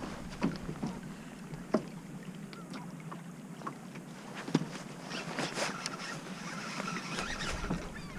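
Choppy water lapping and slapping against a kayak hull, with scattered small knocks and splashes, a little busier in the second half.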